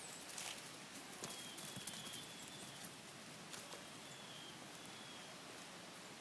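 Faint outdoor ambience with a few short high chirps and scattered light ticks.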